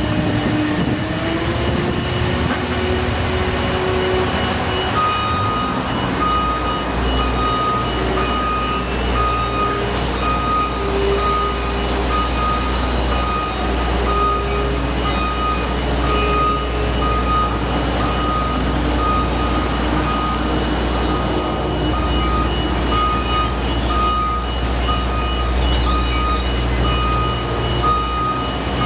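A heavy construction vehicle's engine running with its reversing alarm beeping steadily, about once a second, starting about five seconds in.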